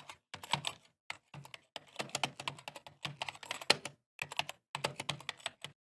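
Computer keyboard typing: rapid, irregular key clicks in short runs separated by brief pauses.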